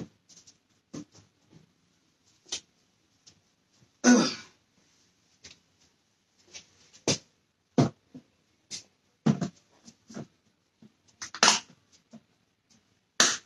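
Scattered short clicks and knocks of kitchen things being handled, with a few louder brief bursts, the biggest about four seconds in and another near eleven and a half seconds.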